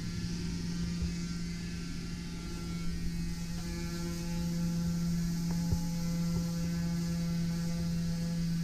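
A steady low electrical hum, with a few faint clicks a little past the middle.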